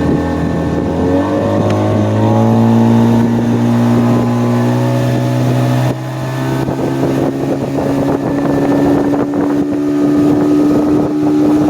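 Boat's outboard motor running under way, its pitch rising about a second in as it speeds up, then holding steady with a shift about halfway through.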